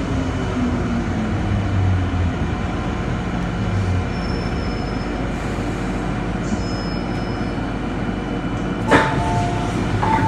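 Inside an MTR Island Line M-Train as it brakes to a stop: the motor whine falls in pitch in the first second, then the car stands with a steady hum. About nine seconds in there is a sharp knock and a two-note chime, and the chime sounds again about a second later.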